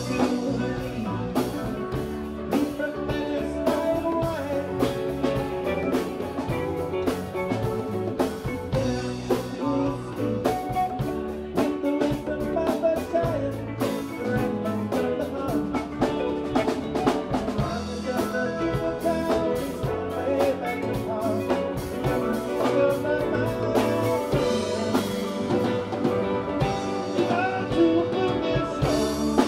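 Live rock band playing: electric guitars, bass guitar, drum kit and congas together in a steady groove.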